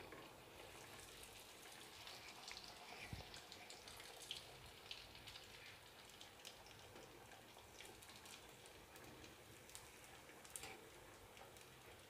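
Faint sizzling and crackling of a vermicelli-coated vegetable ball deep-frying in hot oil, just dropped into the pan.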